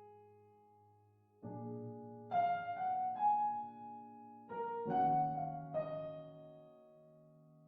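Intro music of soft piano chords, each struck and left to ring and fade, four of them in the first five seconds.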